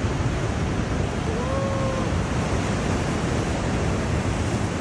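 Heavy ocean surf breaking and churning over rocks below a seawall: a steady, unbroken rush of wave noise.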